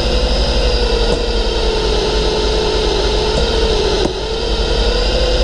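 Cordless drill running fast and steady, turning a windshield cut-out winder that draws the cutting wire through the urethane holding the windshield. It makes a steady whine.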